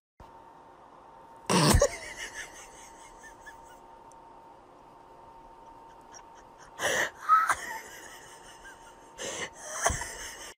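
A cat hissing in short sharp bursts, about five times, over a faint steady hum.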